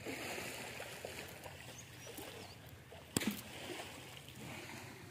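Pond water splashing and trickling, with one sharp knock about three seconds in.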